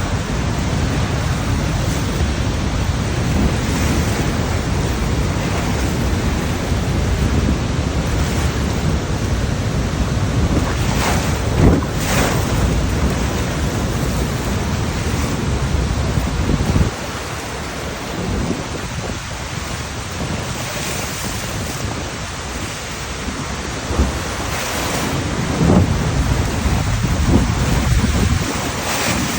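Roar of the Rhine Falls, a huge volume of falling water, with wind buffeting the microphone. About two-thirds of the way through, the deep rumble drops away, leaving a thinner rush of water.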